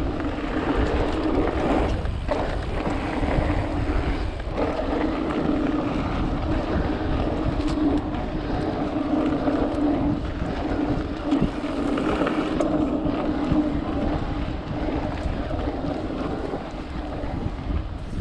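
Riding noise of an electric mountain bike on a dirt trail: wind buffeting the microphone and tyres rumbling over the ground, with a steady hum running through it and a few small knocks.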